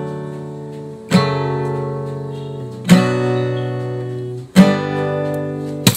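Acoustic guitar strummed: three chords about a second and a half apart, each left to ring and fade, then a quick stroke just before the end.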